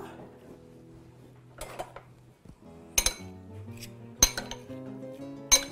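Metal spoon and fork clinking against a small glass bowl while tossing sliced red onions, with four sharp clinks about a second apart, the last two loudest.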